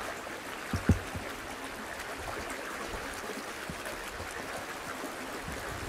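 Shallow gravel-bed stream running steadily. There is one short thump just under a second in.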